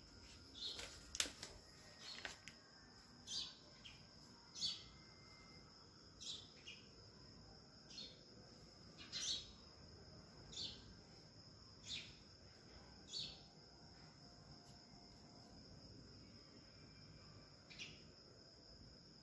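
Short, high chirps repeat about every second and a half over a faint, steady high-pitched whine. A few sharp clicks come in the first couple of seconds.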